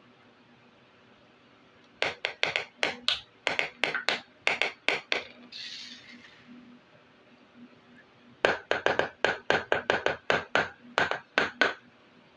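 Small plastic miniature kitchen-set pieces clicking and tapping against each other and a hard surface, in two quick runs of sharp clicks, several a second, with a short soft rustle between them.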